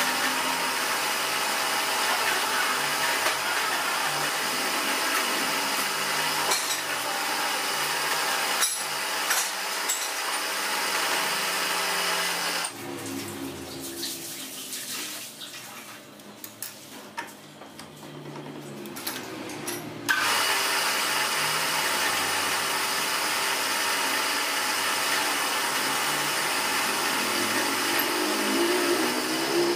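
Drill-press-type machine spinning a single-point fly cutter in a drill chuck, cutting a recess into the crown of an aluminium piston: a steady machining noise. The cutting stops about 13 s in, leaving a few small clicks, and starts again about 20 s in.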